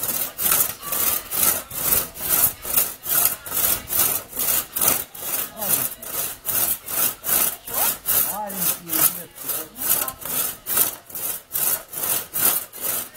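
Two-person crosscut saw cutting through a felled sweet cherry trunk, pulled back and forth in a steady rasping rhythm of about three strokes a second.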